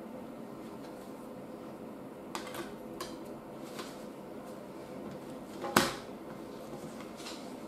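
A CD and its plastic case being handled: a few light plastic clicks, then one sharp snap near the end, over a steady low hum.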